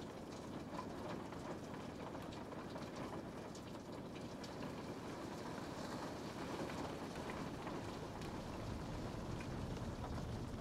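Steady rain falling: an even hiss with scattered faint drop ticks, and a low rumble swelling slightly near the end.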